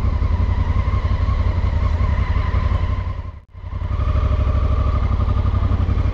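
Honda Africa Twin's parallel-twin engine running steadily at low speed. The sound drops out briefly a little past halfway, then picks up again.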